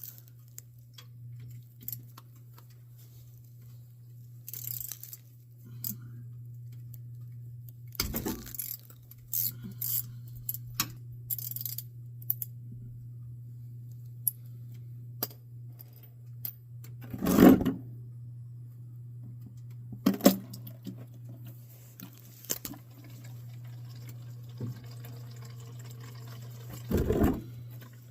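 Warm engine oil pouring and dripping out of a UTV's drain-plug hole into a drain pan, with scattered clicks and several louder knocks of tools being handled. A steady low hum sits under it all.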